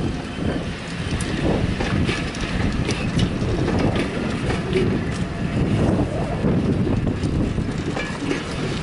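A rake of LNER passenger coaches rolling past close by: a steady rumble of wheels on the rails with irregular clicks and knocks from the wheels and running gear.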